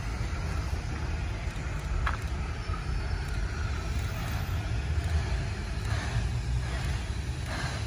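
Steam locomotive 2705 drawing slowly in towards the platform: a steady low rumble, with short bursts of hissing steam about six seconds in and again near the end.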